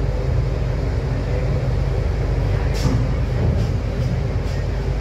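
Steady low diesel rumble from a loaded truck on a ferry's stern ramp during unloading. A few short high hisses come about three seconds in and again near the end.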